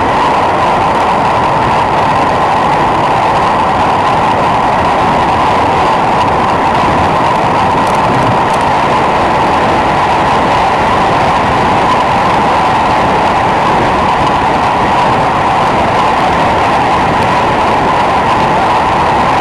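Steady wind roar over a bike-mounted camera's microphone as a road bike descends at speed.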